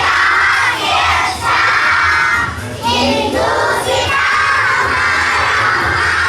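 A group of young children's voices raised together, high-pitched and loud, with music underneath.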